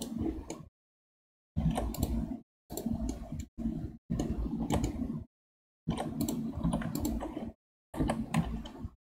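Computer keyboard keystrokes and mouse clicks and wheel scrolling, with a faint electrical hum under them, heard in six short stretches of about a second each, cut off into dead silence in between as a noise gate opens and shuts.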